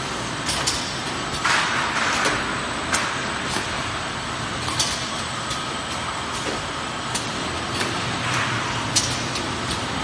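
Snack-bar production and packing line running: a steady machinery din with irregular sharp clicks and knocks, and a couple of short hisses, one about a second and a half in and another near the end.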